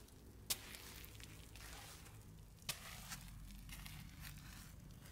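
Slow footsteps in sneakers on dirty stone and sand: two sharp gritty steps, about half a second and nearly three seconds in, with softer scuffing and grinding of grit between them. A steady low hum runs underneath.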